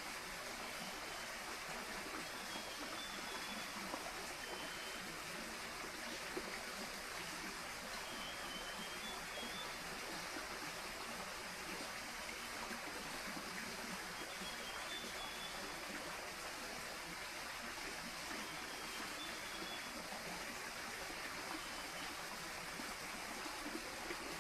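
Tropical rainforest ambience: a steady rushing hiss with faint, brief high chirps every few seconds.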